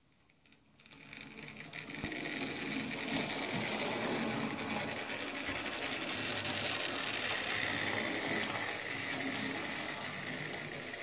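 Hornby OO gauge Thompson L1 2-6-4 tank model locomotive running on track, the whir of its small electric motor and wheels on the rails. It grows louder over the first two seconds and then stays steady.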